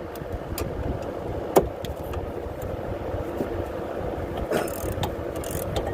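Hand wrench work on a Corvette's rear brake caliper bracket bolt: one sharp metallic click about a second and a half in and a few fainter ticks, over a steady low rushing hum.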